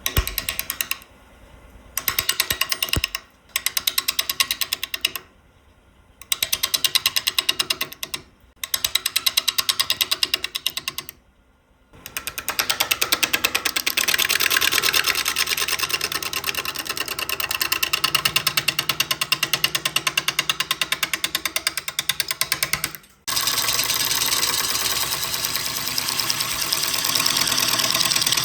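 Gouge cutting an out-of-round wood blank spinning on a lathe, a fast even chatter as the tool hits the high spots each turn. It comes in short bursts separated by brief pauses, then runs for long stretches.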